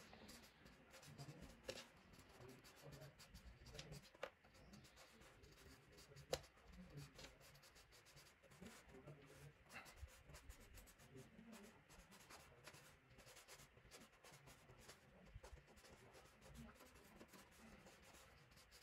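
Faint, irregular scratching of a felt-tip marker stroked lightly across paper, with a few small ticks.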